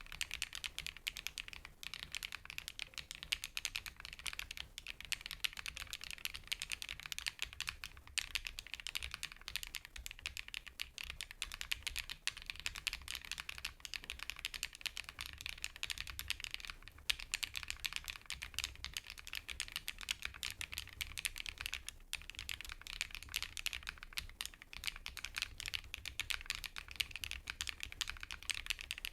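Fast, continuous typing on a KiiBoom PHANTOM81 V2 mechanical keyboard with a transparent pink case and keycaps: a dense stream of rounded, fairly high 'koto-koto' key clacks, broken by a few short pauses.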